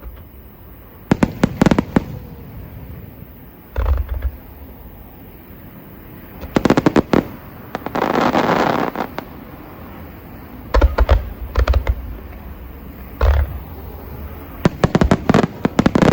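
Aerial fireworks bursting: clusters of sharp bangs every few seconds, some with a deep boom, and a longer crackling rush a little past halfway and again near the end.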